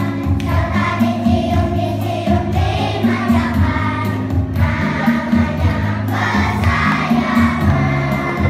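A group of young children singing together in chorus over accompanying music with a steady bass line.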